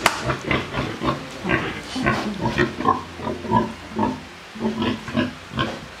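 Black pig grunting in short, irregular grunts, with a few sharp clicks among them, the loudest right at the start.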